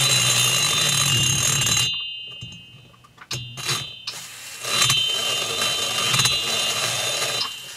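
Right-angle dental lab handpiece spinning a carbide burr against the port walls of a two-stroke chainsaw cylinder: a high steady whine with harsh grinding. The grinding stops about two seconds in while the burr keeps whining more faintly, then starts again about four seconds in and stops near the end.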